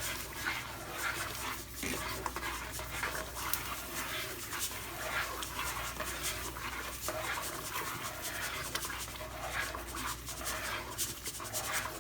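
Grits being stirred in a pot on the stove: repeated scraping, rustling strokes, a few a second, with the crackle of oil from the deep fryer behind them.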